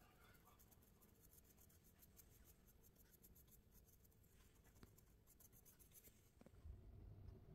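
Faint scratching of a small paintbrush's bristles stroked over a fondant-covered cookie, heard as two runs of rapid fine ticks. A soft low bump comes near the end.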